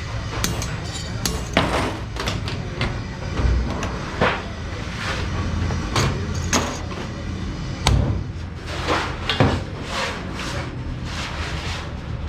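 Irregular metallic knocks and clanks of sheet metal being handled and struck, over a steady low rumble.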